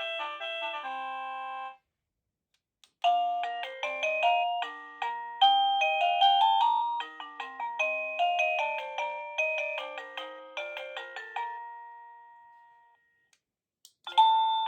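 Avantek wireless doorbell chime playing its electronic melody tunes one after another. One tune ends about two seconds in. After a brief click, a longer tune of quick bell-like notes runs from about three seconds to eleven and fades out, and another tune starts near the end.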